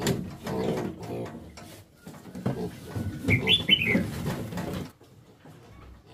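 Young piglets in a wire cage squealing and grunting as they are handled, with one sharp, high squeal that falls in pitch about three and a half seconds in; they fall quiet near the end.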